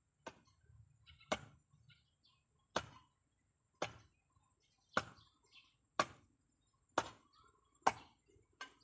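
Steady chopping: nine sharp blows of a hand tool, about one a second, with faint bird chirps between them.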